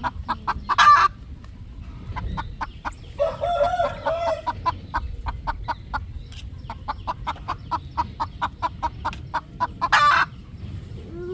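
Roosters clucking in a steady run of short notes, with a longer wavering call about three seconds in and two loud short calls, one about a second in and one near the end.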